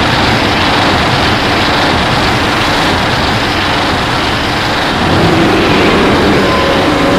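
Custom Godzilla Ultima monster sound effect: a loud, sustained rushing noise with a low rumble underneath, and faint gliding tones about five seconds in.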